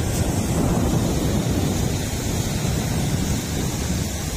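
Surf breaking and washing up a sandy beach, a steady low rush of waves, with wind buffeting the microphone.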